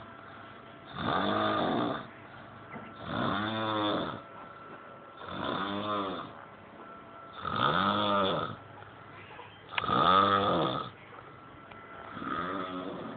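Steady snoring: six snores, each about a second long and about two seconds apart. In each the pitch rises and then falls.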